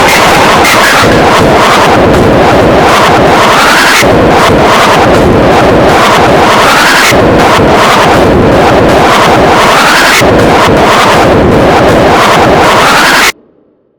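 Extremely loud, clipped YTPMV remix built from chopped sneeze samples, fired off in rapid repeats in a loop that comes round about every three seconds. It cuts off suddenly near the end.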